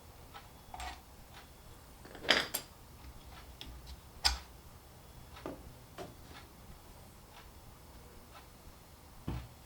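Irregular light clicks and knocks of small hard objects being handled, with two sharper knocks about two and four seconds in.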